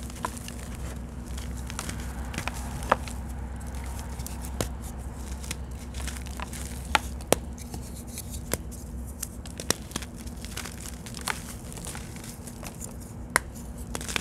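Hands crushing and crumbling reformed chalk blocks into powder: a continuous gritty crumbling with scattered sharp snaps as chunks break, over a steady low hum.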